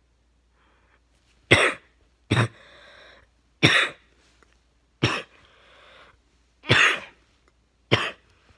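A man coughing in a fit: six sharp coughs over about seven seconds, with breaths drawn in between some of them. The cough comes with sinus drainage, as he puts it.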